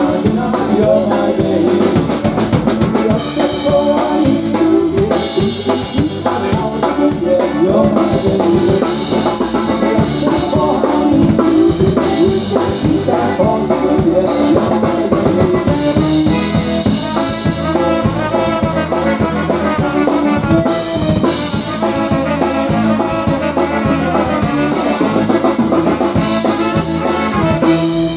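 Live polka band playing an instrumental stretch: horns, led by trumpet, over a drum kit keeping a steady beat.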